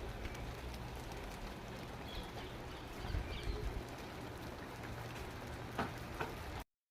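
Steady rain falling, an even hiss with a few faint short high chirps over it. The sound cuts off abruptly near the end.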